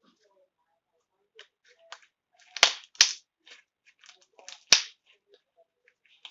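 Slime being worked by hand, with small crackles and three loud, sharp pops about two and a half, three and just under five seconds in: air bubbles in the slime popping.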